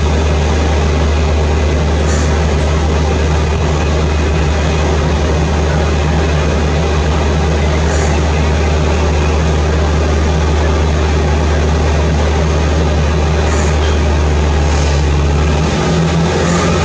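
Steady low rumble of a twin-engine Boeing 767-300ER freighter's jet engines during its landing rollout, with a deep steady hum underneath; the hum breaks up near the end.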